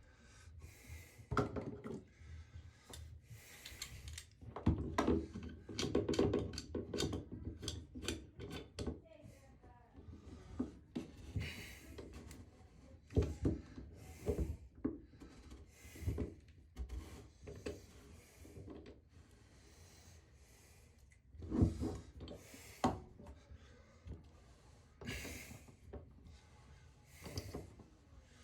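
Hand work on a shower floor drain: irregular scraping, rubbing and knocking of tools and parts, with scattered clicks.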